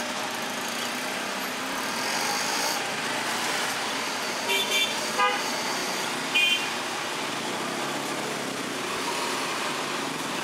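Steady street traffic noise from passing cars and motorbikes, with a few short vehicle horn beeps about halfway through.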